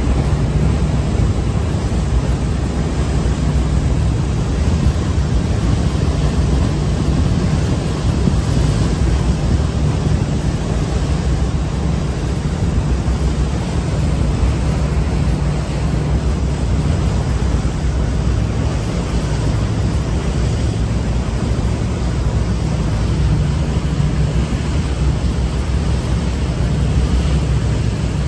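Steady low engine drone of a boat under way, with water rushing past and wind buffeting the microphone.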